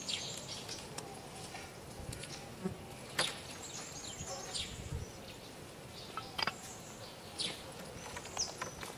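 Outdoor insect buzz with scattered short, high chirps and a sharp click about three seconds in.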